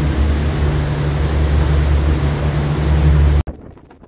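Boat engine's steady low drone under a rush of wind and water noise, cutting off sharply about three and a half seconds in to a much quieter hiss of wind on the microphone.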